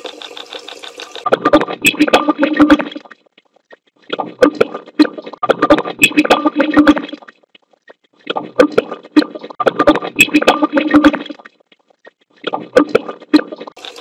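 Garbled, choppy voice-like fragments made by running water noise through AI noise-suppression software, played back four times with short silences between. The fragments are broken by sharp clicks, and a steady hiss comes before the first one.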